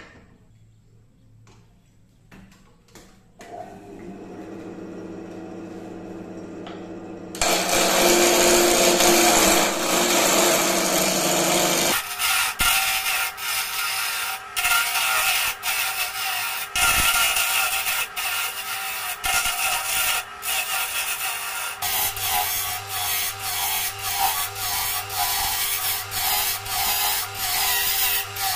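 Wood lathe spinning a segmented blank of rosewood, rengas and maple while a hand-held turning tool cuts it. A steady motor hum comes in a few seconds in, loud cutting noise starts about seven seconds in, and from about twelve seconds the cut turns uneven, with many sharp ticks.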